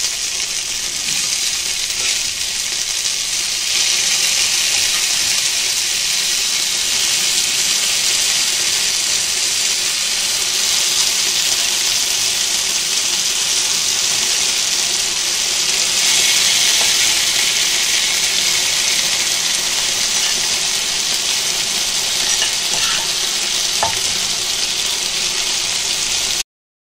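Chicken 65 and its sauce sizzling loudly on a hot iron sizzler plate, a steady hiss that swells slightly a couple of times and cuts off suddenly near the end.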